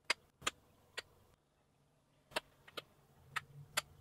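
Sharp clicks of small wooden box halves being knocked together and handled, about eight of them at uneven spacing with short gaps of silence between.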